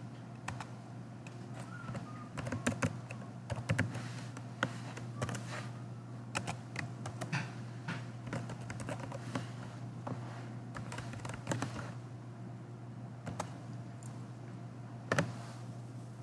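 Computer keyboard typing: irregular keystrokes, some in quick runs, over a steady low hum.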